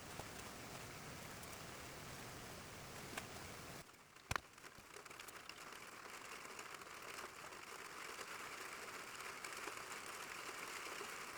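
Steady hiss and patter of rain falling, with a brief dip and a single sharp click about four seconds in.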